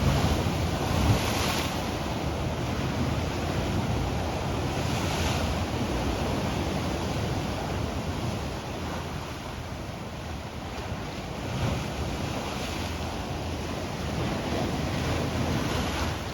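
Ocean surf washing in, each wave swelling and fading every few seconds, with wind rumbling on the microphone.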